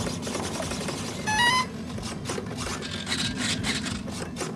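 A short two-note electronic beep rising in pitch about a second in, typical of the electric ducted-fan jet's speed controller arming. Scattered knocks and rubbing from the wooden airframe being handled, over a steady low hum.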